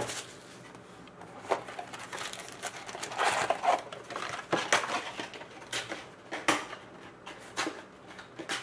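Plastic shrink-wrap crinkling, then a cardboard trading-card box being opened and its foil card packs rustling as they are pulled out and set down, with scattered clicks and taps.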